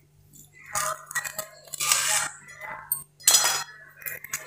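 Knife and grilled toast scraping and clinking on a stainless steel plate as a sandwich is cut in half. There are several short scrapes and clicks, a longer scrape about two seconds in and the loudest clink about three seconds in.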